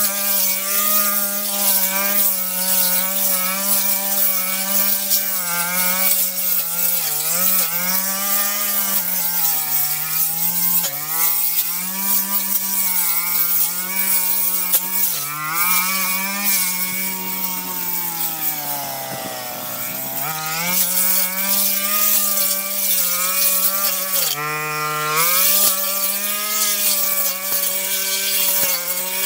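Brush cutter engine running at high revs, its pitch wavering up and down as the blade cuts through grass and weeds, easing down once about two-thirds of the way through before revving back up.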